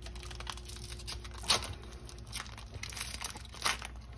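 Foil wrapper of a Yu-Gi-Oh! booster pack crinkling and tearing as it is pulled open by hand, with a stream of small crackles and two sharper ones about a second and a half in and near the end.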